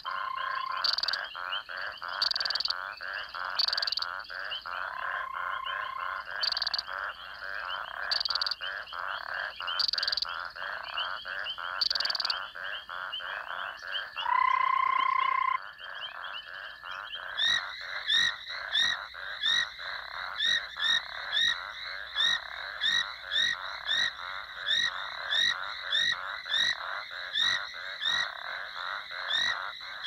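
A chorus of several frog species calling at a breeding pond at night: dense trilling and clicking, with a sharp click every second or two. A long, steady whistling trill about halfway through is the loudest call. After about 17 seconds the chorus thins to a regular chirping call repeated about twice a second.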